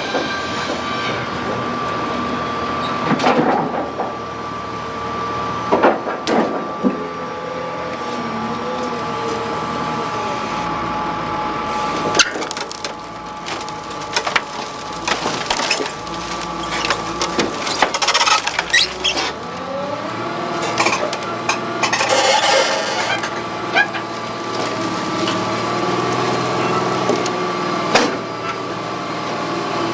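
Heavy truck engine running, its pitch slowly rising and falling, with a steady high whine and a few sharp knocks now and then.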